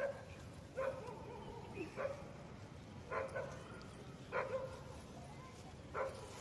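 A dog barking repeatedly, six short barks about a second apart.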